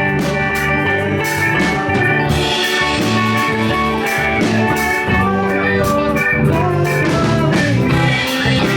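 Live rock band playing an instrumental passage: electric guitars and bass over a drum kit, with keyboards, a steady beat and no singing.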